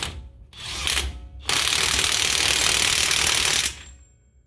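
Cordless DeWalt XR impact wrench hammering on a differential pinion nut: a short burst about half a second in, then a steady run of about two seconds that stops abruptly. The nut is being driven down to crush the pinion's crush sleeve and set the bearing preload.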